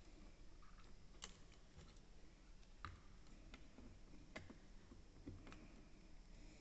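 A handful of faint, irregular clicks and ticks from patch-cord banana plugs being handled and pushed into the sockets of an electronics trainer board.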